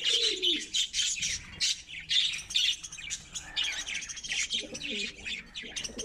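A colony of budgerigars chattering and chirping: a busy, unbroken stream of short high calls, with a few lower warbling calls at the start and near the end.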